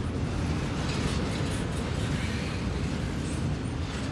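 Double-stack intermodal well cars creeping past on the rails, a steady low rumble of steel wheels on track.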